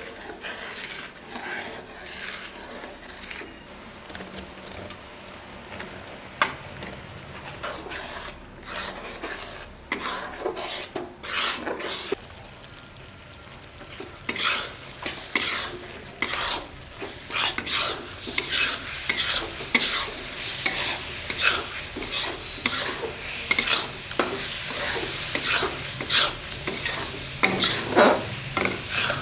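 A spatula stirring and scraping against a pan as a kalakand mixture cooks down, with a light sizzle. The scraping strokes come faster and louder from about halfway.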